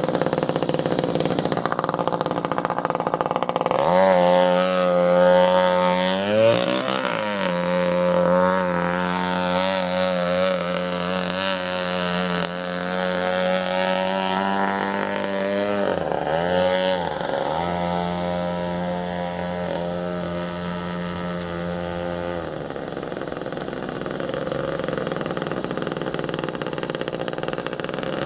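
21.2 cc Echo two-stroke string-trimmer engine with a straight pipe, running in an RC boat. It runs rough at first, then from about four seconds in holds a high, steady pitch at speed. The pitch dips and climbs back twice, and near the end the engine becomes fainter and rougher.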